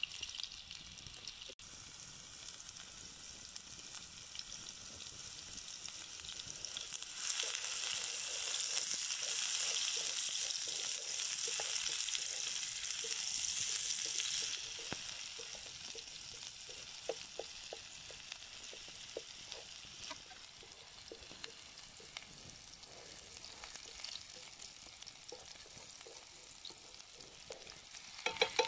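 Chopped onions sizzling in oil in a frying pan. The sizzle swells for several seconds in the middle, and light clicks of wooden chopsticks stirring against the pan come through, a few louder ones near the end.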